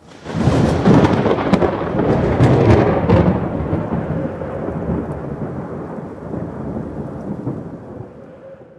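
A thunderclap: sharp crackles over the first three seconds, then a rumble that slowly dies away.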